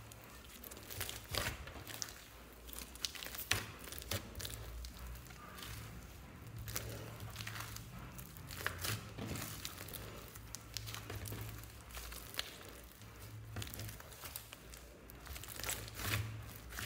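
Hands squishing, kneading and stretching a large mass of mixed slime: a run of sticky crackles and small pops, with a steady low hum underneath.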